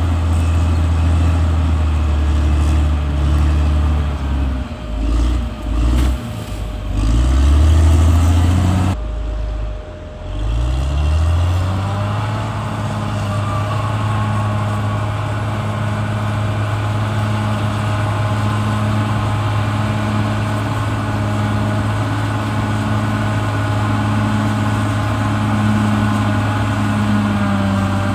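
Caterpillar D6R XL bulldozer's diesel engine working, its pitch dipping and rising for the first several seconds. After an abrupt break about nine seconds in, the engine revs up and then runs steadily.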